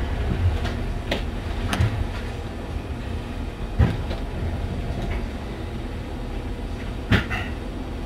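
Hamburg U-Bahn DT3-E train standing at a platform, heard from the driver's cab: a low steady rumble broken by a few sharp knocks and clicks, the loudest about four and seven seconds in.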